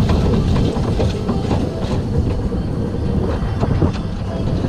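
SBF Visa family roller coaster train rolling along its steel track, a steady rumble of the wheels with irregular clattering.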